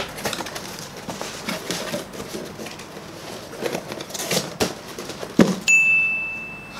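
Rustling and light knocks of a cardboard fried-chicken box being handled, with a sharper knock about five seconds in. Near the end comes a bright, steady 'ting' sparkle sound effect that holds for about a second.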